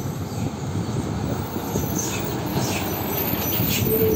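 A MAN diesel tractor unit pulling a loaded LPG tanker semi-trailer passes close by, its engine running and tyres on the road, growing louder as it comes near. From about halfway a quick series of short high-pitched noises comes in, and a steady tone starts near the end.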